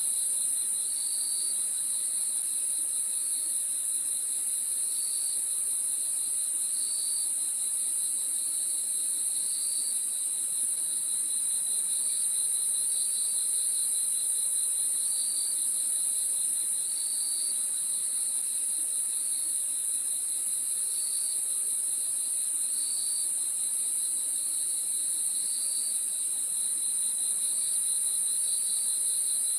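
Crickets calling at night in a dense, steady chorus: a continuous high-pitched trill, with a lower chirp repeating about every second and a half to two seconds over a steady lower tone.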